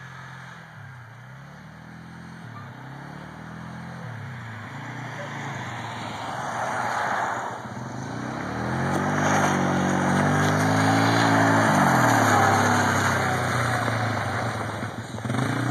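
ATV engine revving up and down over and over as the quad is ridden through snow. It grows louder past the middle of the clip.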